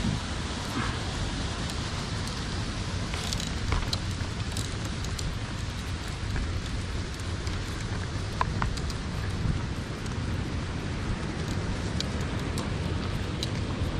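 Walking on a dirt path and through riverbank grass: footsteps and rustling over a steady rush of noise with a low rumble, dotted with scattered light ticks.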